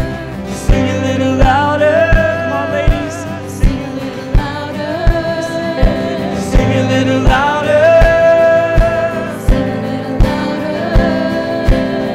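Worship band playing a slow song, with keyboard, acoustic guitar and several singers over a steady drum beat of about four beats every three seconds.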